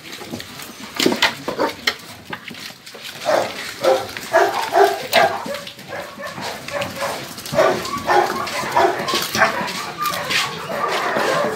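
A crowded pack of dogs barking and whining at feeding time, short overlapping calls that start about three seconds in and grow denser toward the end. Sharp knocks and clatter, mostly in the first seconds.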